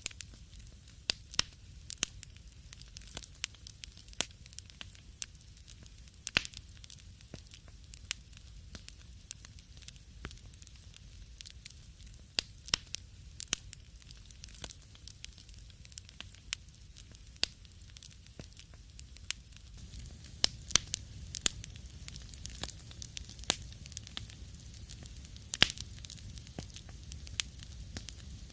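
Fire crackling in a fireplace: irregular sharp pops and snaps over a low steady rumble, coming more thickly from about two-thirds of the way through.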